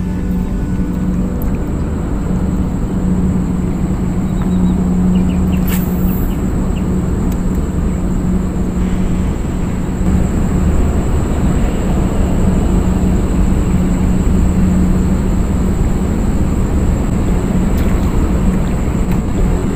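Steady low mechanical rumble with a constant hum, and a thin high steady whine above it.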